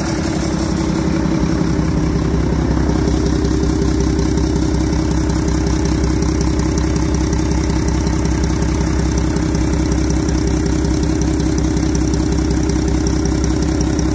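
Mack MP7 10.8-litre turbocharged inline-six diesel engine idling steadily.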